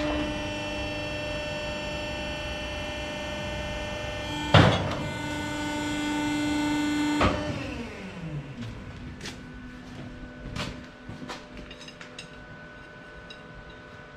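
Steel bar ringing with a long, many-toned metallic ring after being struck; a second sharp strike about four and a half seconds in renews the ring, which cuts off suddenly a few seconds later. Light metal clinks and taps follow.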